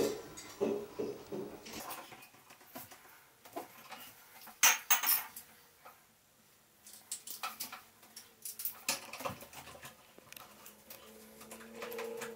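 Scattered small metal clinks, clicks and taps as a light fixture's metal mounting bracket and its screws are handled and adjusted, the loudest a few sharp clicks about five seconds in.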